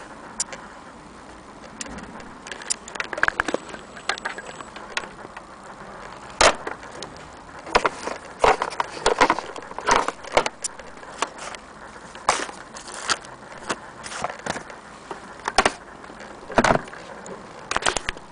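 Irregular clicks and knocks from hands handling a sewing machine and its fabric, with no motor running.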